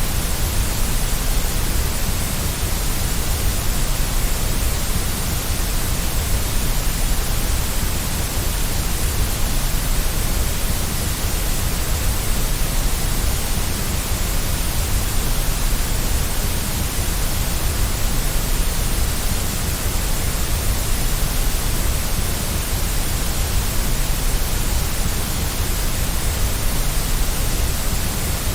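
Steady white noise: an even, unchanging hiss across the whole range, from low rumble to high hiss.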